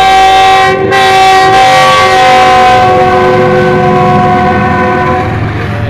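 Pakistan Railways diesel locomotive's air horn held in a long, loud multi-note blast, with a brief break about a second in, fading out near the end as the locomotive passes close by. Beneath it, the rumble of the passing train.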